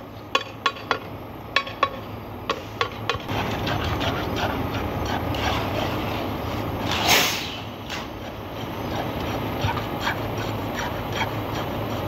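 Steel tamping rods tapping and clinking against steel concrete-cylinder moulds as fresh concrete is rodded into them: a quick run of ringing metallic taps in the first three seconds, then scattered lighter taps, over a steady low engine hum. A brief loud rush of noise about seven seconds in.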